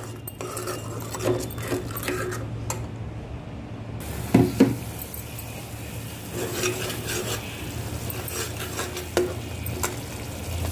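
Metal spatula stirring and scraping wet spice masala around a steel kadai, with light clinks against the pan and two sharper knocks about four seconds in. The masala sizzles faintly after a little water was added to keep it from burning.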